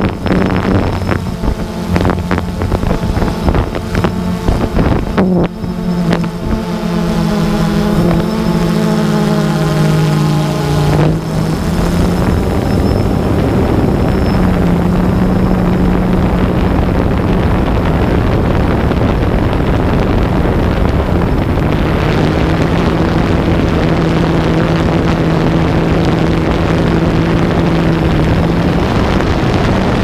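Phantom 2 quadcopter's motors and propellers buzzing loudly as heard from its onboard GoPro, with wind on the microphone. The pitch wavers and shifts over roughly the first ten seconds, with a few knocks early on, then holds to a steady hum.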